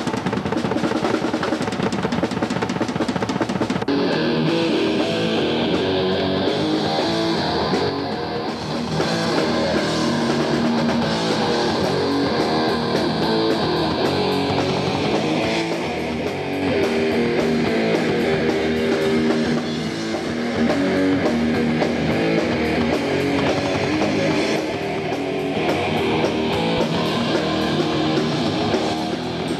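Rock band playing live: electric guitar and bass over a drum kit. Drums lead for the first few seconds, then about four seconds in the guitars come in with held, ringing chords over the beat.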